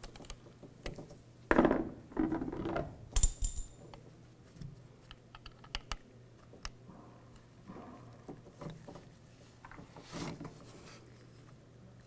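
Small clicks, taps and rattles of screws, a Torx screwdriver and a plastic tailgate handle bezel being handled as the screws are started, with a brief ringing metallic clink about three seconds in.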